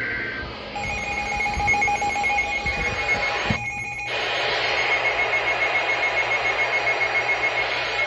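Weather alert radio sounding its alarm, a rapidly pulsing electronic beep, over a loud steady hiss of heavy rain. The sound cuts out briefly a little before halfway through.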